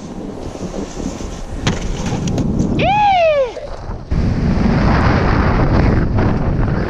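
Wind buffeting a helmet-mounted camera's microphone as a snowboarder rides down through fresh powder: a loud, low rumbling rush that gets louder about four seconds in. A short whooping shout rises and falls about three seconds in.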